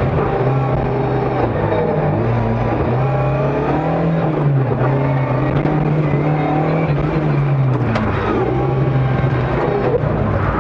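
Ford Escort Mk2 rally car's engine heard from inside the car, pulling hard with the revs rising and falling several times as it accelerates, then easing off as the car slows sharply near the end.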